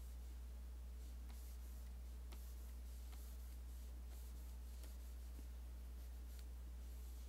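Stylus scratching and tapping in short strokes on a drawing tablet, with a few small clicks, over a steady low electrical hum.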